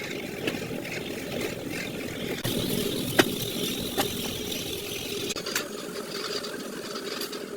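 Heavy rain pouring steadily, with a few sharp drip or knock sounds about three and four seconds in. It starts and stops abruptly.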